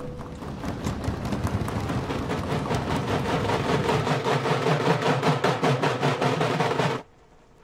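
A troupe of dhol drums beaten in a fast, driving rhythm, growing louder and then stopping abruptly about seven seconds in.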